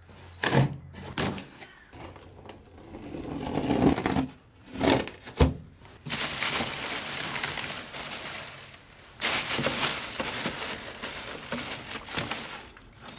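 A knife slits packing tape on a cardboard box with a few short scrapes and rips. From about halfway on, a plastic bag inside the box rustles and crinkles for long stretches as it is opened.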